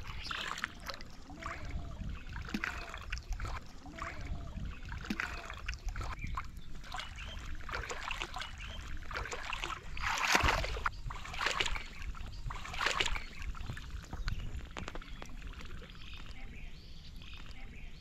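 Shallow water sloshing and splashing as a person wades through it, with a few louder splashes about ten to thirteen seconds in.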